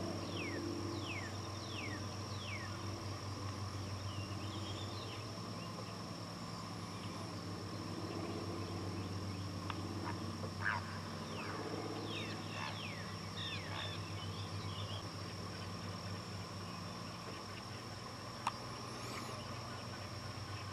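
Outdoor lakeside ambience: birds calling with short falling whistles scattered throughout, over a steady high-pitched whine and a faint low hum. A single sharp click about 18.5 seconds in.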